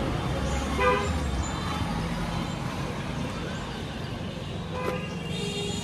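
Roadside traffic rumbling steadily, with a short vehicle horn toot about a second in and another near the end.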